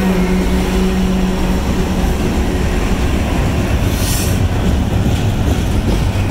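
Trailing diesel locomotives of a freight train passing close at speed, a GE rebuilt AC44C6M and a GE Dash 9-44CW, with the steady drone of a diesel engine that fades about a second and a half in. A steady rumble of wheels on rail follows as the locomotives and the first container cars go by, with a brief high-pitched sound about four seconds in.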